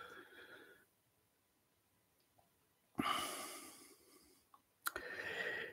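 A man breathing audibly during a pause: two short breaths, one about three seconds in and another near the end, the second opening with a faint mouth click.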